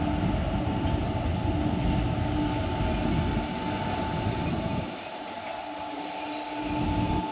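Freight train's car-carrier wagons and brake van rolling slowly past close by: rumble of wheels on the rails under a steady whine, the rumble easing about five seconds in.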